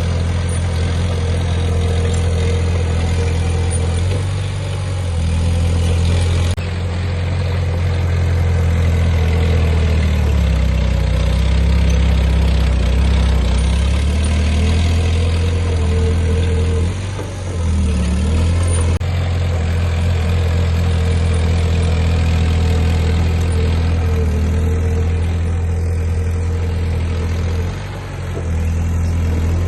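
Heavy diesel engine of earthmoving machinery running steadily at a low, even pitch, dipping briefly twice.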